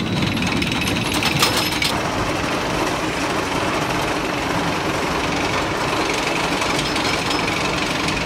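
Rocky Mountain Construction hybrid roller coaster train running on its steel track, a steady rapid mechanical clatter, with a sharper rattle about a second in.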